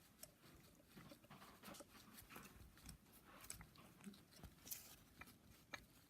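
Near silence with faint, scattered light clicks of metal parts being handled: an oiled piston pin being slid through a new piston and connecting rod.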